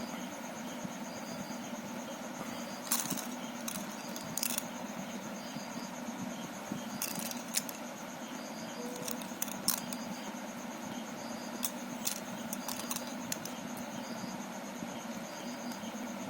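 Small hard plastic clicks and taps, scattered and irregular, from the plastic pieces of a Rubik's cube being handled during its teardown or reassembly, over a steady background hum.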